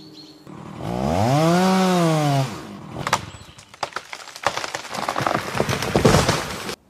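A Eurasian lynx call, one drawn-out cry that rises and then falls in pitch over about a second and a half. It is followed by several seconds of dense crackling and crunching that stops abruptly near the end.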